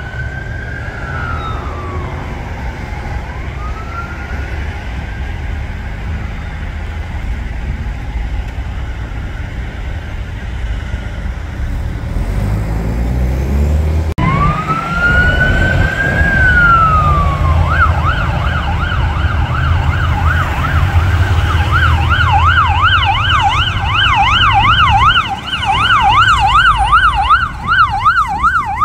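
Chevrolet Express ambulances' electronic sirens over traffic rumble. A slow rising and falling wail plays first. After a cut about halfway in, another wail switches to a fast, steady yelp for the last ten seconds or so.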